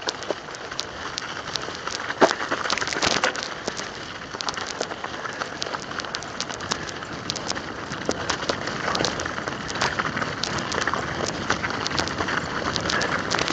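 Mountain bike tyres rolling over crusty snow and ice: a steady rushing noise dotted with many short clicks and ticks, with one sharper knock about two seconds in.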